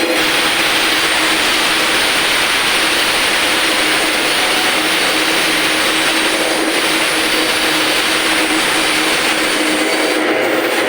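Electric fish-cutting machine running steadily, a loud hum with a dense hiss over it.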